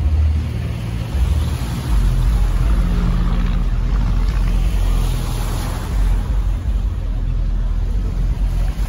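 Seaside ambience: a steady, heavy low rumble under an even wash of sea and wind noise, with no distinct events.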